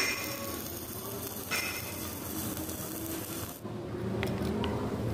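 Stick (arc) welding: a steady crackling hiss from the electrode arcing as weld is built up inside a worn bearing-housing bore to repair it. The crackle cuts off abruptly about three and a half seconds in.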